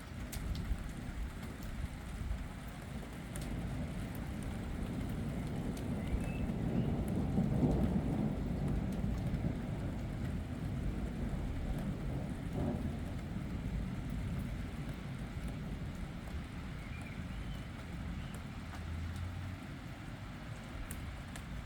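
Thunder rumbling low over steady rain, the rumble building to its loudest about eight seconds in and then slowly dying away.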